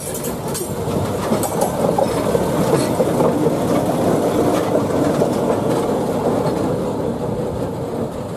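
Small diesel track-inspection locomotive passing close by, its engine running and wheels running on the rails; the sound grows louder to a peak around the middle, then eases off as it moves away.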